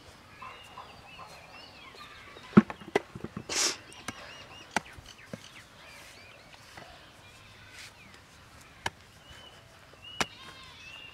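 Sharp knocks and scrapes of a metal rod striking and prying at hard, cracked dry mud, in a quick cluster about two and a half seconds in, a longer crumbling scrape just after, then single knocks spaced a few seconds apart. Birds call faintly in the background.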